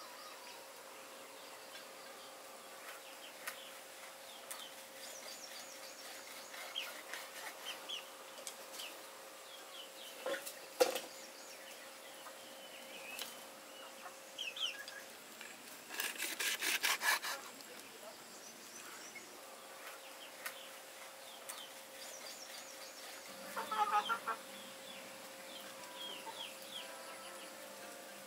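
Chickens clucking, with a fast run of clucks partway through and another call near the end, over small birds chirping. Two sharp knocks of a cleaver on a wooden cutting board come about ten seconds in.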